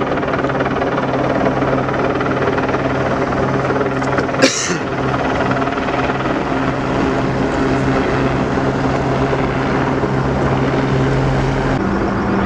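Steady, loud engine drone with a constant low hum. A brief sharp hiss cuts through it about four and a half seconds in, and near the end the hum changes pitch abruptly.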